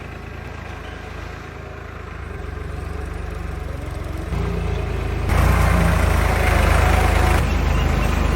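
Generator set's engine running steadily, growing louder in two sudden steps about four and five seconds in.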